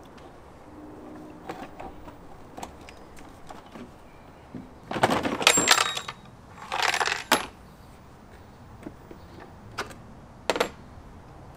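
Hard plastic air filter housing clattering and knocking as it is handled and lifted out of the engine bay, in two bursts about five and seven seconds in, followed by a couple of sharp clicks.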